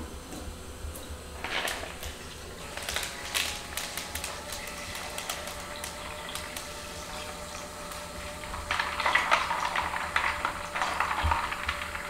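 Tap water running from a kitchen faucet into a plastic mixing bowl to fill an ice bath, with scattered clicks and knocks. The flow grows louder about nine seconds in.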